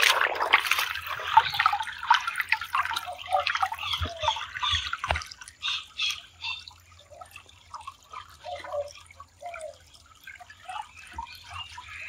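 Shallow spring-fed stream trickling and gurgling over pebbles and around a rock. It thins out about halfway through into sparser, quieter gurgles and drips.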